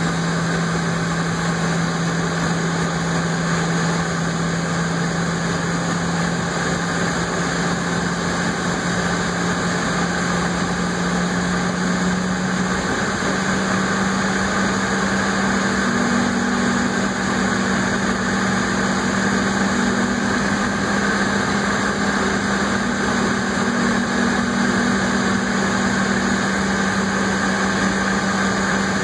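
Steady airliner cabin noise while taxiing: jet engines running at low power and the cabin air system hissing, with a steady hum that steps up in pitch about halfway through.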